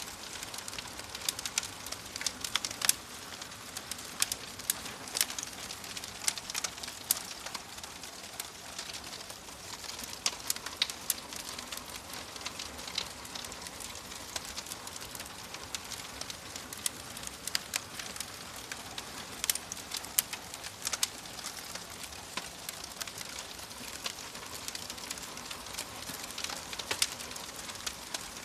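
Wood fire burning in a fireplace: a steady soft hiss with irregular sharp crackles and pops scattered throughout.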